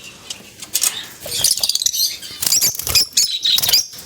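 Caged birds making a dense chatter of rapid, high-pitched chirps and squawks, mixed with short flutters, starting about a second in.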